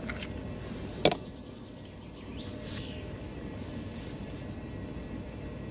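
Steady outdoor background noise with one sharp click about a second in, from a neodymium fishing magnet and its catch, a bottle cap, being handled in gloved hands. A faint brief hiss follows about two and a half seconds in.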